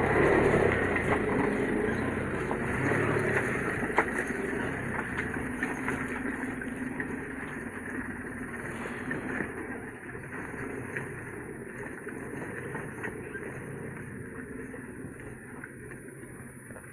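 Old truck engine running, growing steadily fainter, with a few sharp knocks or clanks along the way.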